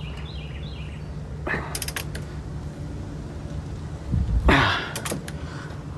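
Torque wrench work on suspension bolts: a few light metal clicks about a second and a half in, then a louder, longer clunk and strain about four seconds in, over a steady low hum.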